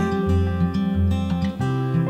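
Song's instrumental gap: acoustic guitar strumming chords.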